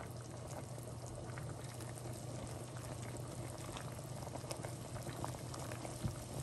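Water in a pot of egg noodles bubbling at a rolling boil while being stirred with a spatula: a steady bubbling hiss with many small scattered pops and clicks, over a steady low hum.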